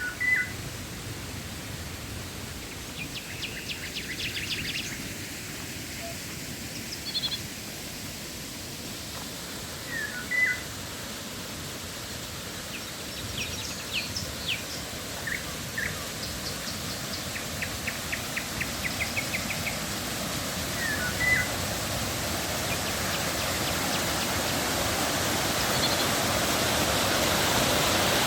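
River water rushing steadily and growing gradually louder, with birds calling over it: a short chirp repeated about every ten seconds and a couple of quick, rattling trills.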